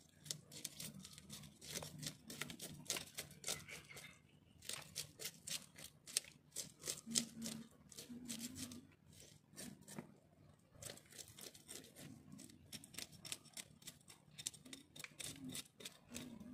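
Quick, crisp snipping and scraping as a fish is cut and cleaned by hand, in rapid runs broken by brief pauses.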